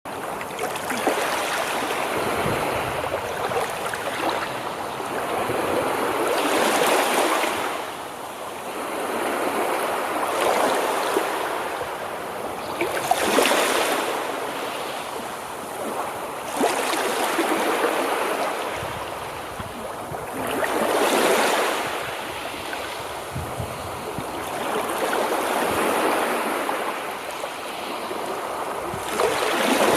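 Sea waves breaking and washing back, a rushing hiss that swells and eases about every three to four seconds.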